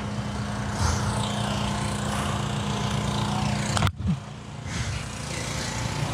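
A steady mechanical hum of running machinery, engine-like, with several steady tones over a noisy background. It breaks off abruptly about four seconds in and then carries on.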